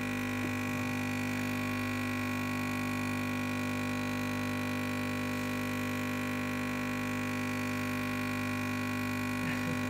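Capsule coffee machine's pump humming steadily while it dispenses coffee into a mug, running an extra-long brew.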